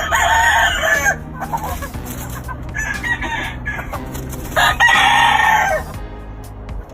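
Gamefowl roosters crowing: two loud crows about a second long, one at the start and one about four and a half seconds in, with a shorter, fainter call between them.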